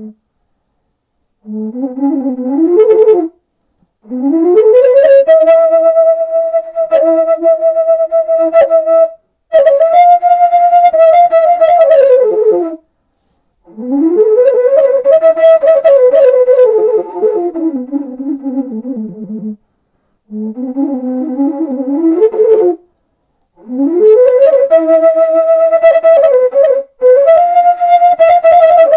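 Washint, the Ethiopian end-blown bamboo flute, playing a series of short phrases separated by brief pauses. Each phrase slides up from a low note to a held high note and glides back down.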